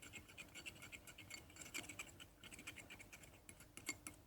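Teaspoon stirring a thickening shampoo-and-salt slime mixture in a small plate: faint, quick scrapes and clicks of the spoon against the dish, with one slightly louder click near the end.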